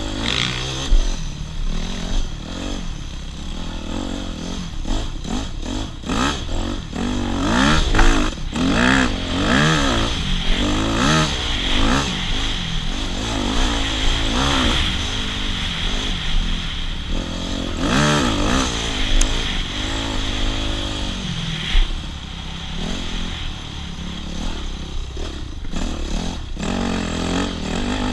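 Enduro dirt bike engine revving up and down over and over as it is ridden, its pitch rising and falling with the throttle.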